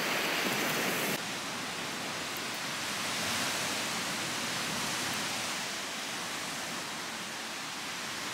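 Steady outdoor rushing noise, an even wind-like hiss with no distinct events. It drops slightly in level about a second in.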